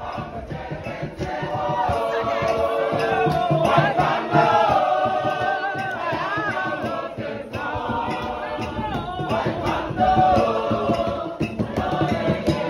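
A choir singing together, many voices in a lively song.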